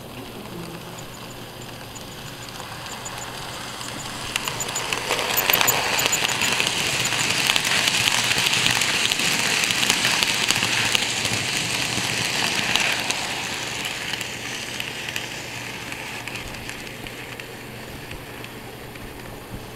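N scale model train running past close by, its wheels making a fast run of fine clicks and a rattle on the track. It grows louder for a few seconds, is loudest in the middle, then fades away.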